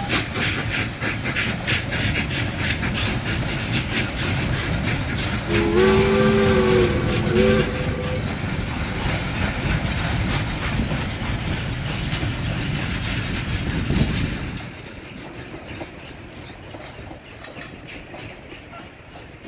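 Freight boxcars and a passenger coach of a steam-hauled train rolling past, wheels clicking steadily over the rail joints. About six seconds in, a steam locomotive whistle sounds one blast of about two and a half seconds, a chord of several notes. The rolling noise drops off sharply about fifteen seconds in as the last cars pull away.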